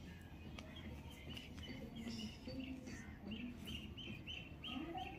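A bird chirping faintly in the background, ending in a run of six short, evenly spaced chirps over a low steady hum.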